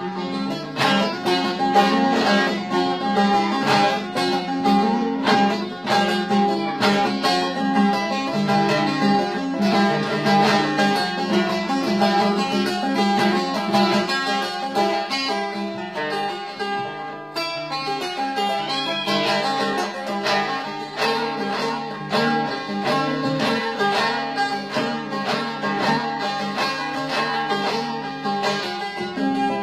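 Bağlama (Turkish long-necked saz) played solo with a pick, a fast run of plucked notes over a steady ringing drone.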